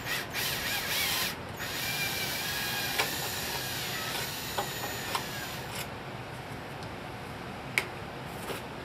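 Hand-held electric drill boring a pilot hole through thin sheet metal: the motor runs steadily with the bit grinding into the metal, and it stops about six seconds in. A single click follows near the end.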